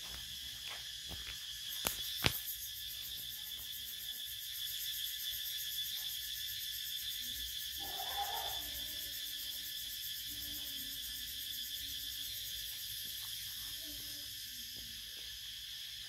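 Steady, high-pitched insect chorus with a fast, even pulse. Two sharp clicks sound about two seconds in.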